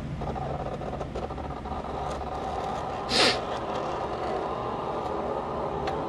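Homemade PET-bottle filament maker running on test, a steady mechanical hum and whir, with one short hiss about three seconds in.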